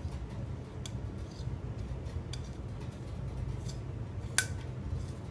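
Small metal clicks and taps from handling an aluminium handlebar mount, its Allen-head bolt and Allen key, with one sharper click near the end, over a faint steady low hum.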